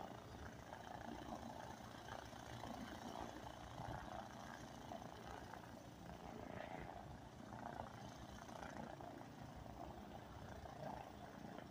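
A Cessna 172N Skyhawk's four-cylinder piston engine running faintly and steadily at idle as the plane taxis.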